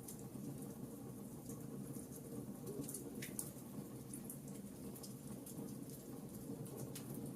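Wood fire in a fireplace crackling: scattered sharp pops and ticks over a faint, steady low rumble.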